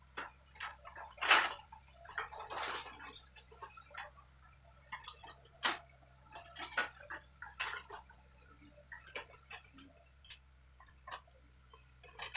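A distant excavator's diesel engine running as a faint, steady low hum, under irregular sharp clicks and cracks. The loudest crack comes about a second in, and a scatter of smaller ones follows.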